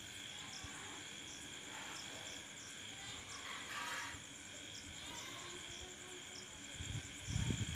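Quiet garden ambience with a steady high insect drone and a faint short chirp repeating about twice a second. A few low thumps come near the end.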